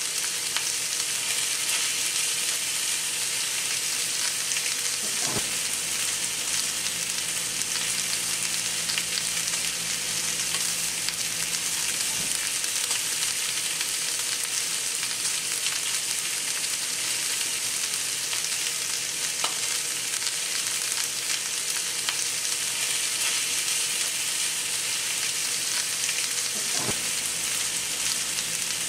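Steaks and chopped garlic sizzling steadily in a hot skillet, with a few faint clicks of a spatula stirring the garlic.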